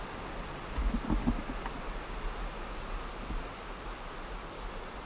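Insect chirping in short, even, high-pitched pulses, about four or five a second, fading out about three seconds in. Low wind rumble on the microphone runs under it, with a few low thumps about a second in.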